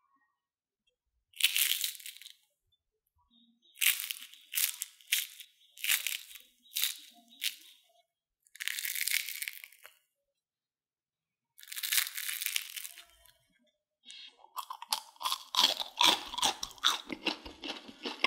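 Crispy deep-fried potato and cornstarch snacks crunching as fingers squeeze and break them open: several separate crackly crunches with silence between, then a dense run of crunching near the end.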